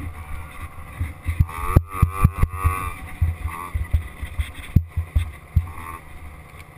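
A small peewee dirt bike engine running on a sandy trail, its pitch rising and falling as the throttle is worked, about a second and a half to three seconds in most strongly. Low knocks from bumps and wind buffet the microphone on the bike.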